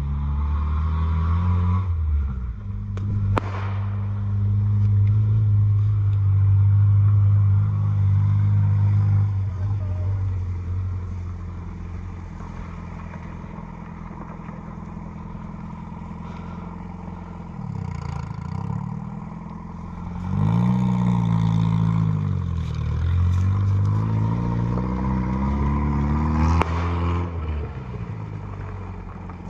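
A motor vehicle's engine running, its pitch dropping and rising several times in the second half as it changes speed. There are two sharp clicks, a few seconds in and near the end.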